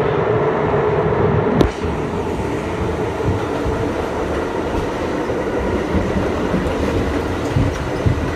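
R62A subway car running express at speed, heard from inside the car: a steady rumble and rail noise, with one sharp click about a second and a half in, after which it runs a little quieter.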